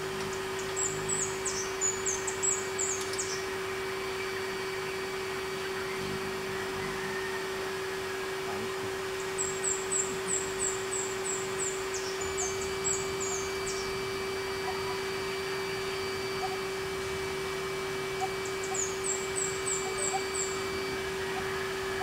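A bird singing runs of quick, high chirps, three times over, against a steady low hum.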